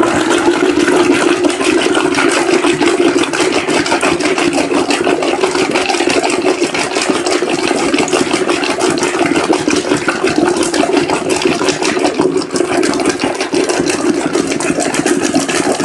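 Electric lassi churner spinning a wooden churning stick in a steel pot of yogurt, mango, milk and ice: a loud, steady motor hum with the liquid churning.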